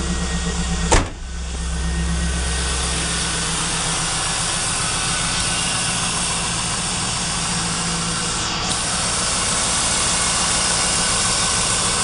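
GM LS1 5.7-litre V8 idling steadily, with no tick heard now that a $3 part has fixed the ticking noise. A single sharp knock about a second in.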